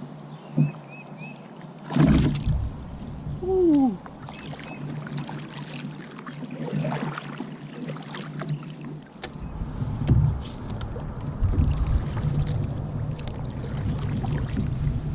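Water splashing and sloshing around a fishing kayak, with a louder splash about two seconds in and a heavier low rumble in the second half, with a few faint high chirps.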